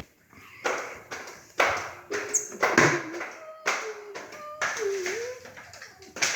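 A person's voice imitating a car engine cranking without starting: short, noisy mouth-made bursts about once a second, with small pitched glides between them.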